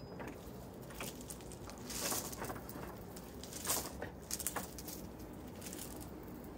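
Loose gravel crunching and shifting under hands and bare feet, in irregular scrapes and clicks as a person pushes up off the stones and steps across them.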